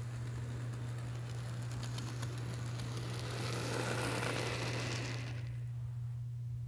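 Kato N scale Union Pacific FEF-3 model steam locomotive running along the track with a small whir of motor and wheels on rail and faint ticks. It grows louder as it passes close about four seconds in, then drops off sharply, over a steady low hum.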